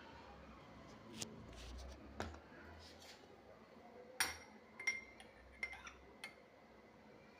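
Kitchenware clinking: about seven sharp taps of utensils against glass or dishes, spread over several seconds. A few ring briefly, and the loudest comes about four seconds in.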